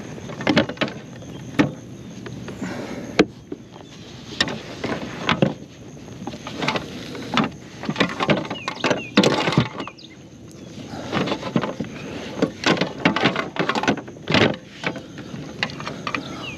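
Irregular knocks, clacks and rattles of fishing gear being moved around on a kayak's cramped deck.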